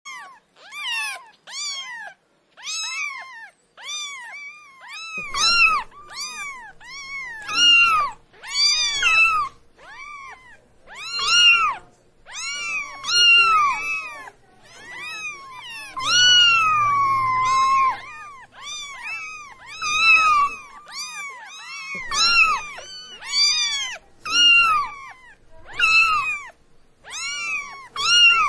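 Cat meowing over and over: short meows that rise and fall in pitch, about one a second. About halfway through comes one longer meow, drawn out and falling.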